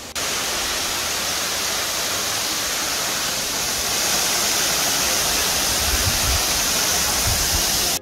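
Steady loud hiss of a waterfall's rushing water, starting abruptly and cutting off suddenly at the end. Low buffets of wind on the microphone come in during the last couple of seconds.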